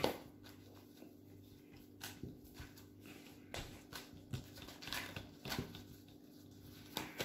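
Faint, irregular light taps and clicks of Uno cards being handled on a table between rounds, over a steady low hum.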